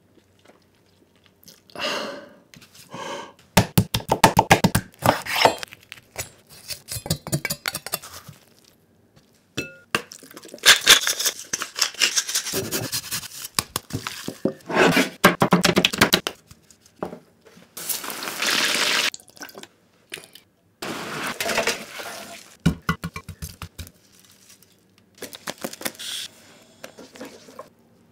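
Close-up food-preparation sounds in a string of short, separate bursts with brief gaps between them, among them gloved hands squishing raw chicken pieces in a glass bowl. Some bursts are quick runs of sharp clicks and taps.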